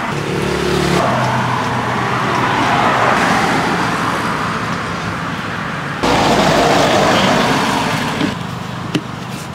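Steady road traffic noise from passing vehicles, with a few sharp clicks near the end.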